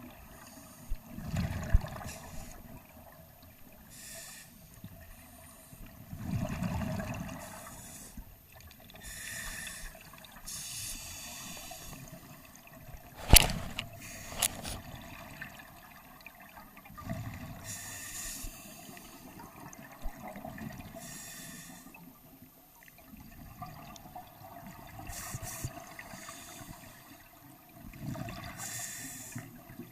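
Scuba regulator breathing underwater: a hiss with each inhale and a rush of exhaust bubbles with each exhale, repeating every few seconds. About halfway through come two sharp knocks, a second apart.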